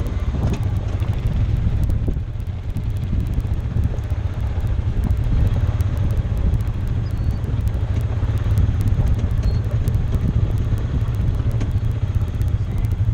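Side-by-side UTV engine running steadily under way on a dirt track, together with the rumble of the machine moving over the ground.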